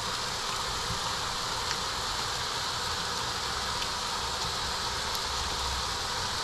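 Red sauce with grouper chunks sizzling and bubbling in a hot cast iron skillet as it is stirred, heating through, with a pot of water at the boil beside it: a steady hiss.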